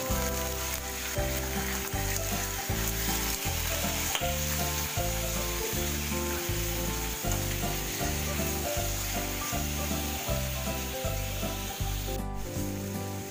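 Cubed pork and garlic sizzling in a stainless steel frying pan as they are stirred and turned with a spatula, over background music with a steady low beat.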